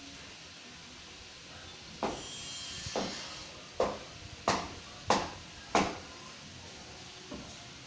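A run of six sharp knocks, about one every two-thirds of a second, starting about two seconds in, with a fainter seventh knock near the end, over a steady background hiss.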